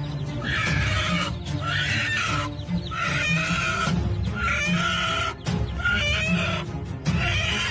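Background music: a bright, wavering phrase repeats about once a second over a steady low bass.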